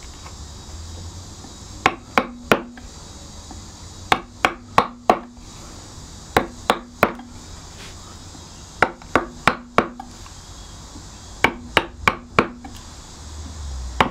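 Mallet striking a carving gouge held upright against oak, in five quick runs of three to five sharp taps with pauses between. These are the vertical stop cuts that sever the wood fibres along the carved lines.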